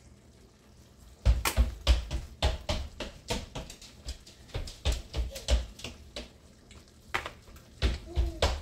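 Seasoning shaken from a shaker over a frying pan of sauce: a string of irregular taps and rattles starting about a second in.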